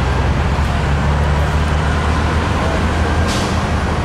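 Car engine running steadily, a low hum heard from inside the car, with a short hiss about three seconds in.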